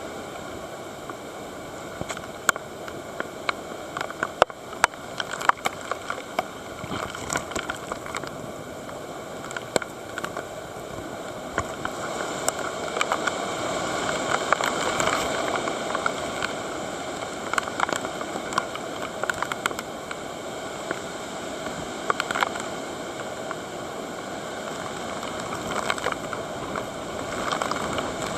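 Typhoon wind blowing hard: a steady rushing noise that swells in a stronger gust about halfway through, with many sharp taps and clicks of things struck by the storm.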